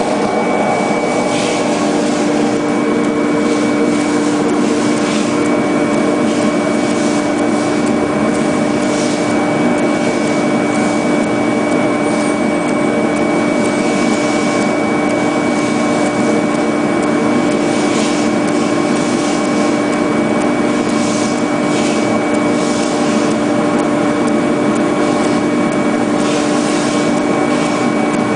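CNC contour foam cutting machine running, its oscillating wire blade cutting foam. A steady hum with a thin high whine under a rasping hiss, with brief sharper hisses every few seconds.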